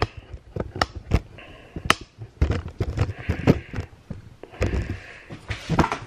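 A plastic food storage container full of rice being handled and set down on a kitchen counter: a run of sharp clicks, taps and knocks.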